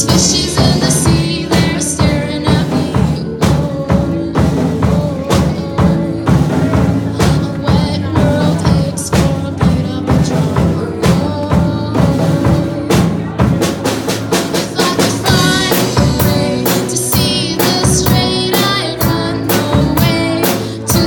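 Music with a drum kit keeping a steady beat of bass drum and snare hits under sustained pitched instruments.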